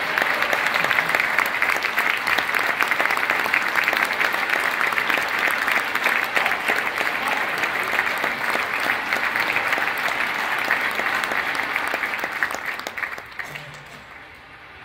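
A large audience clapping in sustained applause, which dies away about two seconds before the end.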